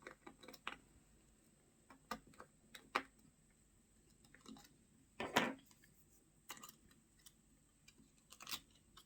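Faint, scattered clicks and taps of a precision screwdriver and a tiny screw against a smartphone's internal metal bracket as the screw is fitted, with a brief louder scrape about five seconds in.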